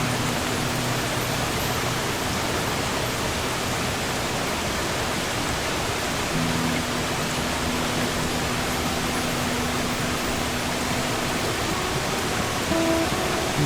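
Steady rush of sea surf under slow, sparse acoustic guitar: a few held low notes ring out, one chord struck about six seconds in and sustained for several seconds, and a few higher notes near the end.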